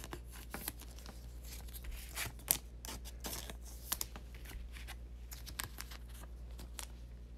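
Trading cards and clear plastic card sleeves being handled: light, irregular scraping, rustling and crinkling of card stock and thin plastic, with scattered small clicks, over a steady low hum.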